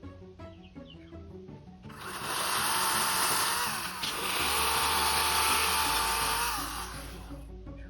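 EGO battery-powered chainsaw cutting through a log for about five seconds, starting about two seconds in: a steady whine of the motor over the rasp of the chain, easing briefly midway before it bites again. Background music plays throughout.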